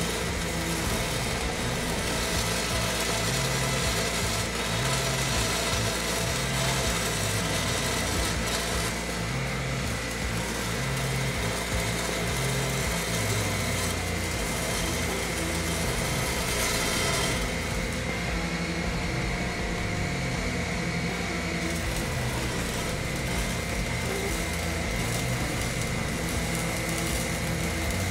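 Electric arc welding on a steel pipe: the steady crackle and hiss of the arc, with music playing underneath.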